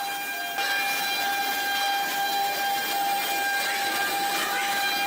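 CNC plasma cutter running: a steady high whine of several fixed tones over a hiss, stepping up in level about half a second in.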